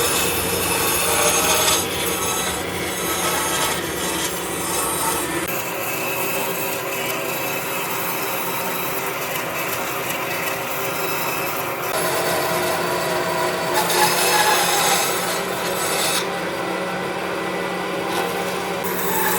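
A power tool working wood with a continuous abrasive rubbing and grinding noise over a steady motor hum. The character of the noise shifts abruptly a few times.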